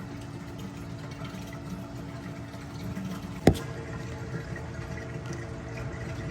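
Aquarium water circulating and splashing steadily, with a faint steady hum, and one sharp knock about three and a half seconds in.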